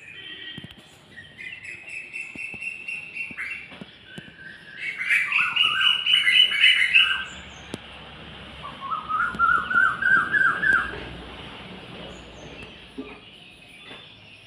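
Songbirds singing and chirping. The loudest phrase is a quick run of rapid notes about five seconds in, and a second run of repeated, lower notes follows near the ten-second mark, over faint high twittering from other birds.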